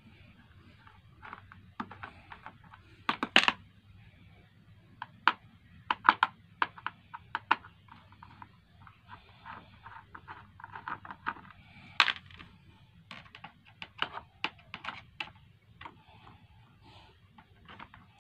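Screwdriver turning out the induction coil's mounting screws in a plastic cooker housing: irregular small clicks, taps and scrapes of the driver tip and screws, with a few louder knocks.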